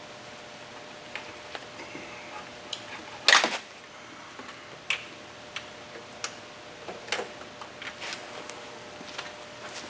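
Scattered clicks and metallic clanks of tools and a jumper wire being handled while a starter-circuit test is set up. The loudest clatter comes about three seconds in, over a faint steady hum.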